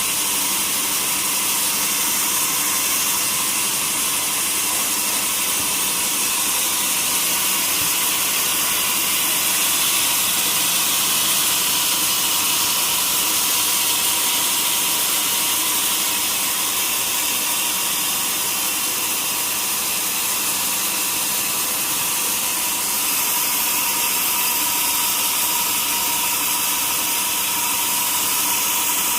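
Sawmill saw running steadily: a constant high hiss with a faint steady hum underneath.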